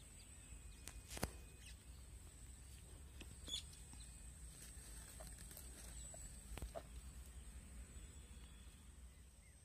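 Faint outdoor ambience: a steady high-pitched tone over a low rumble, with faint bird chirps and a few sharp clicks.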